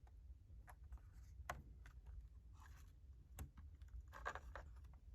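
Faint scattered clicks and taps of a laptop RAM module being handled and pushed into its memory slot.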